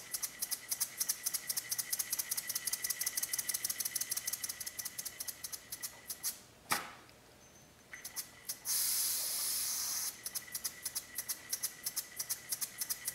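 Small spool-valve model steam engine running on air blown into it by mouth: rapid, even exhaust puffs with a thin steady tone. The beat stops for about a second and a half midway, with one sharp click, then returns, with a stretch of loud steady hiss before it settles back into its rhythm.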